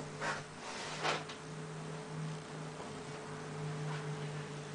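Steady low electrical hum, with a couple of faint soft knocks in the first second or so.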